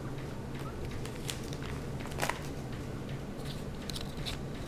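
Light handling of plastic binder sleeve pages: scattered soft crinkles and clicks, the most distinct about two seconds in, over a steady low hum.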